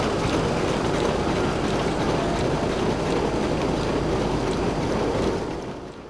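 Scale-model steam traction engine running in steam: a steady, dense running noise with a low rumble, fading away near the end.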